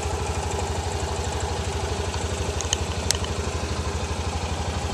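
A vehicle engine running steadily with a fast, even throb. Two sharp clicks a little past halfway.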